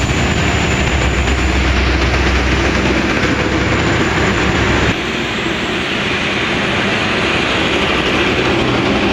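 Express train running past at speed: the low engine rumble of a WDP4D diesel locomotive mixed with wheel and rail noise. About five seconds in the sound changes abruptly and the low rumble largely drops away.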